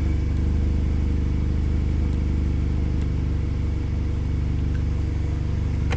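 Audi A4 B8.5 turbocharged engine idling steadily.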